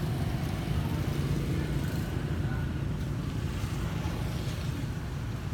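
Honda Click scooter's single-cylinder engine idling with a steady low rumble.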